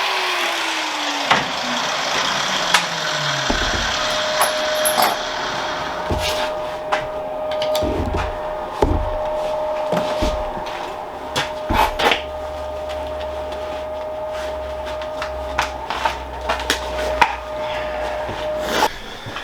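Metalworking on steel parts at a workbench. Scraping tool work is heard over a motor whose pitch falls steadily as it winds down over the first few seconds. Then come scattered sharp knocks and taps of steel over a steady hum.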